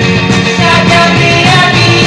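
Music: a sped-up rock song playing steadily.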